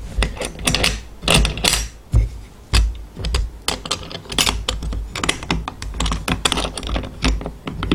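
Gravity boot's metal latch and clasp being handled and fastened: a run of irregular sharp clicks and knocks, metal on metal.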